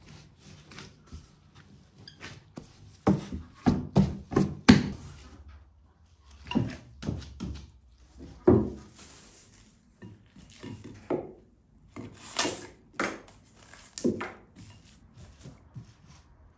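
Soft dough being kneaded and pressed against a wooden board: irregular dull thumps and knocks, with a quick run of about five a few seconds in.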